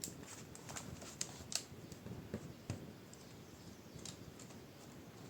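Plastic bottom cover of a Lenovo S20-30 laptop being pressed shut by hand, its clips snapping into place: a string of light, irregular clicks and taps, thinning out after about three seconds.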